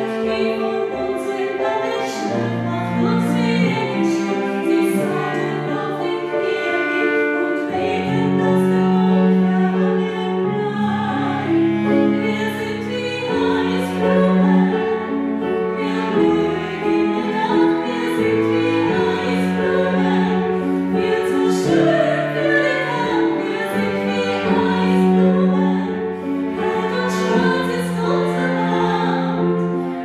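Vocal ensemble singing a Christmas song in several-part harmony, long held notes moving from chord to chord every second or two.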